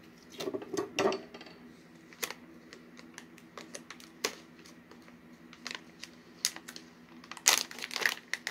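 Resealable plastic snack pouch being handled and pulled open: scattered crinkles and clicks, with bursts of crinkling about half a second in and again near the end.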